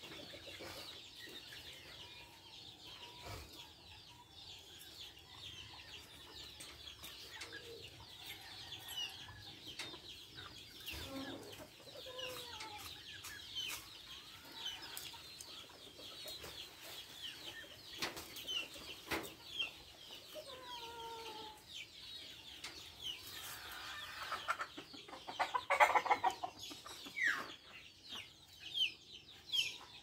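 A small group of budgerigars chirping and chattering in a continuous stream of short, high chirps, with a few louder, harsher calls near the end.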